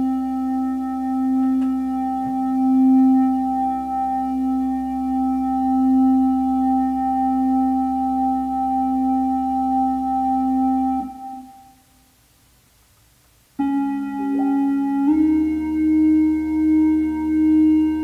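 Sustained electronic keyboard chords played from an Alesis V49 MIDI keyboard whose keys are being tested after repair. One steady chord is held for about eleven seconds and cuts off, then after a short pause a second chord starts and its notes shift twice.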